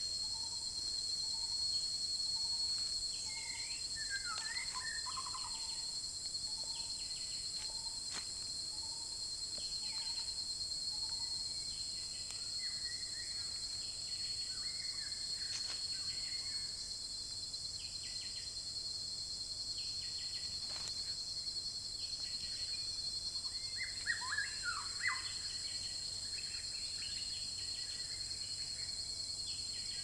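Forest birds calling over a steady high-pitched drone of insects. A soft low note repeats about once a second for the first dozen seconds. Flurries of quick chirps come about four seconds in and again near the end.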